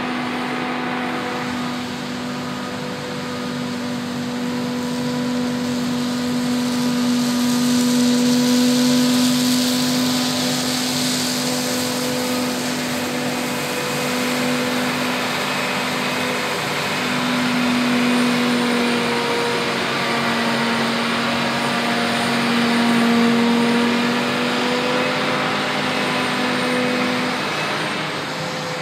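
John Deere 8600i self-propelled forage harvester under load chopping whole-crop cereal, its engine and cutterhead giving one steady drone that wavers slightly in pitch over a dense rush of crop being chopped and blown. A tractor pulling the trailer alongside runs under it.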